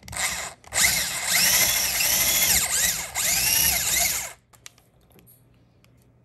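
Cordless drill boring a new screw hole into the wall: a short burst on the trigger, then about three and a half seconds of drilling, the motor's pitch sagging and recovering several times as the bit bites, before it stops.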